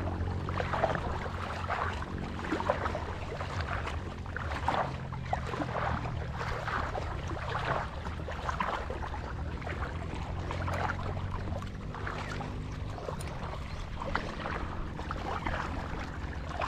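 A boat's motor running steadily as a low hum, with irregular splashing over it.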